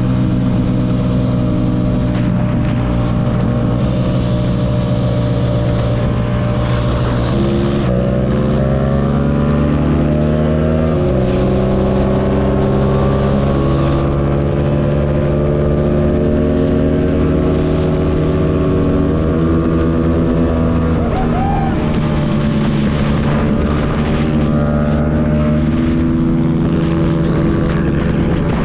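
Yamaha MT-07's parallel-twin engine running under way, its pitch climbing and then dropping sharply a few times as the rider changes gear, with wind noise over the microphone.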